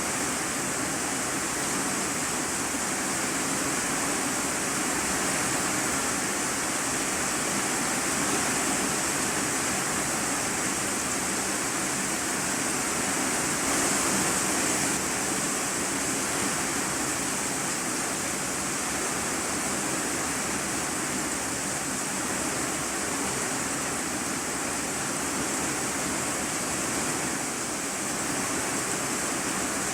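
Heavy rain falling on an iron-sheet roof, heard from inside the room beneath it: a dense, steady hiss.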